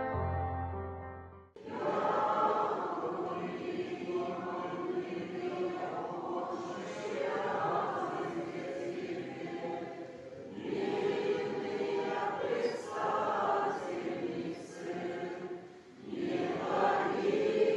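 Church choir singing a slow chant in long phrases, with short breaks about ten and sixteen seconds in. Before it, a held chord of background music fades and stops about a second and a half in.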